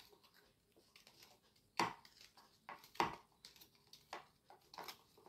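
Faint rustling and crinkling of paper strips being bent and pressed by hand around a paper cup, with two sharper handling sounds about two and three seconds in.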